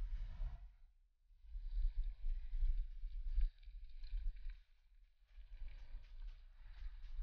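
Wind buffeting an action camera's microphone, mixed with the rumble of bicycle tyres rolling over rough asphalt and gravel while riding. The noise drops away briefly about a second in and again about five seconds in.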